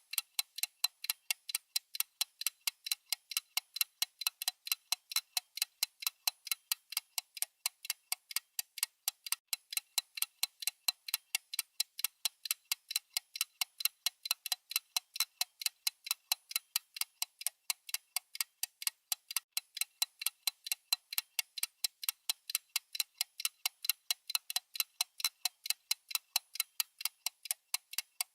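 Mechanical watch movement ticking steadily, several quick, even ticks a second.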